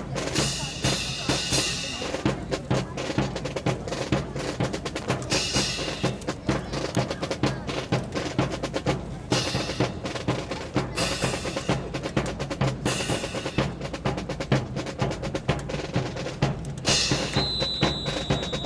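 Drum-based music with a fast, steady snare and bass-drum rhythm, rolls and repeated cymbal crashes. A high steady tone lasts about a second near the end.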